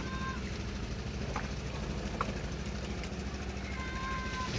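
Toyota 4x4's engine running steadily, heard from inside the cab while driving a rough track, with a few sharp knocks and rattles and a couple of brief high squeaks near the start and end.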